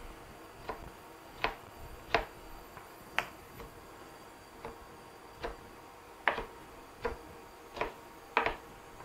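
Kitchen knife chopping soaked, rehydrated mushrooms on a chopping board: sharp irregular taps of the blade on the board, roughly one or two a second, some coming in quick pairs.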